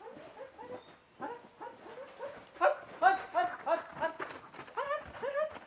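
A dog barking and yelping in a fast run of short, high-pitched barks, about three a second. The barks are fainter at first and grow louder about two and a half seconds in.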